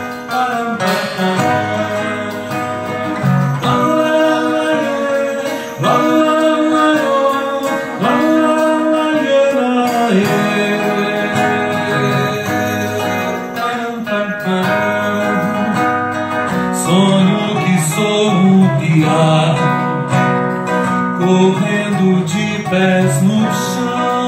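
Live acoustic guitar playing a melodic instrumental passage, accompanied by a hand drum.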